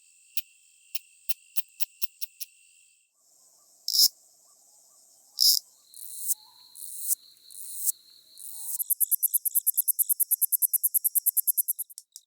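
Calls of several different katydid species heard one after another: first sparse sharp ticks over a steady high buzz, then two loud short buzzes, then a few swelling buzzy phrases, and near the end a fast, even train of pulses at about ten a second.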